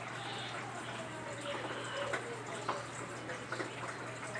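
Water splashing and gurgling inside a washing machine over a steady low hum, as its newly replaced electric drain pump runs.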